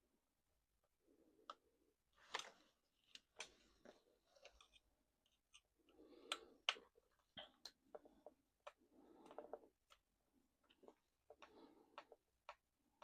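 Faint, irregular light clicks and ticks of small tools and parts being handled while an RC truck chassis is taken apart.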